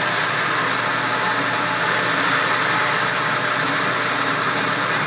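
Motorized target carrier running steadily as it carries the target down the lane, a loud even whir, with a short click just before the end.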